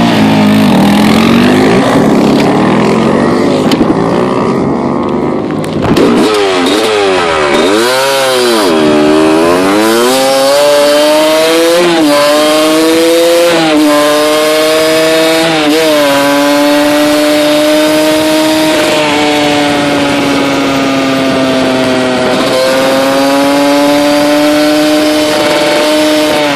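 Honda CR250 two-stroke dirt bike engine at speed. After a dip and climb in pitch it shifts up through several gears, each shift a brief drop in pitch, then holds a steady high rev. The first few seconds are blurred by rushing noise.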